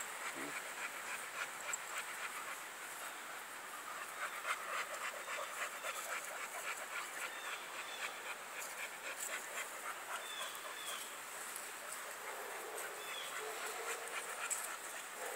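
A dog panting close by, a steady run of quick breaths about two to three a second, with a few faint high chirps in the second half.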